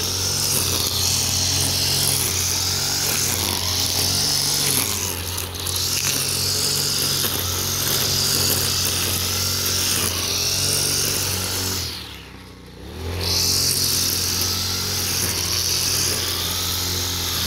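Petrol brush cutter with a nylon trimmer line head, running at high speed and whirring through grass. About twelve seconds in the throttle is let off and the engine drops back for about a second before revving up again.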